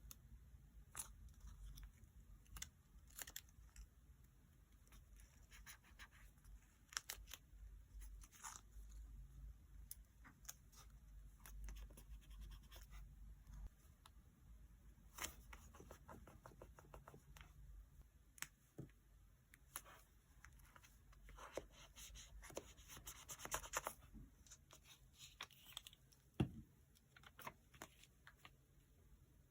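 Faint, scattered taps, clicks and rustles of paper and stickers being handled, peeled and pressed down while decorating a diary page. A denser stretch of rustling comes about three quarters of the way in, and one sharper tap near the end.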